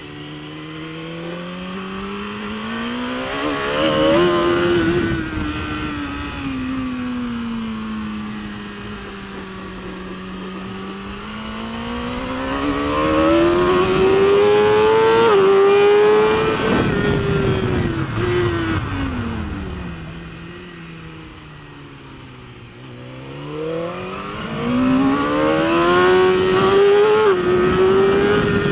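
BMW S1000RR inline-four superbike engine heard onboard at racing speed, its revs climbing and falling three times as it accelerates out of corners and brakes into the next, with quick gear changes near the top of the second and third climbs. A steady rush of wind runs under it.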